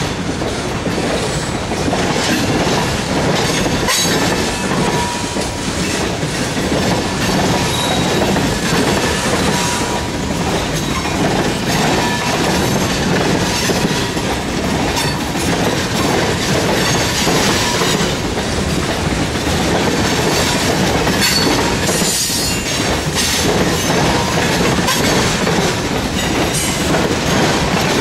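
Freight train tank cars rolling past: a steady loud rumble of steel wheels on rail with a clickety-clack over the rail joints, and now and then a faint, brief wheel squeal.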